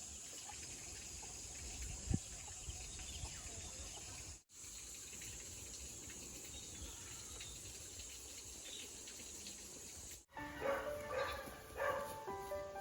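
Outdoor ambience: a steady high-pitched hiss over low wind rumble, broken by two abrupt cuts, with a single thump about two seconds in. Background music with held notes starts near the end.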